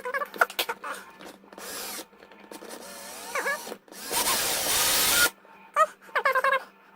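Power drill with a 5 mm bit running for about a second, boring into hard plastic.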